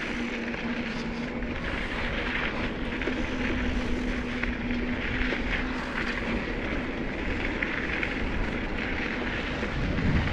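Wind rushing over a GoPro's microphone while riding a bicycle along a dirt track: a steady, rumbling rush of wind noise.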